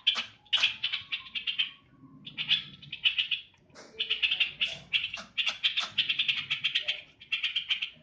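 Caged trucukan (yellow-vented bulbul) singing: several phrases of rapid, chattering notes separated by short pauses.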